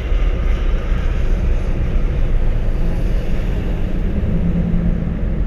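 Steady road noise inside a moving vehicle's cabin: a low rumble of tyres and engine, with a low hum coming in about four seconds in.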